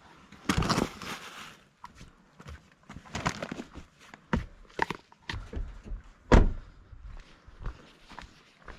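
Footsteps with irregular knocks, clunks and a brief scrape, with one heavy thump about six seconds in.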